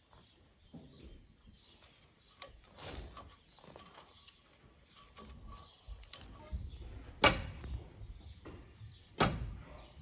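Intermittent knocks and scraping from hands-on yard work, with two sharp knocks, the loudest, in the second half.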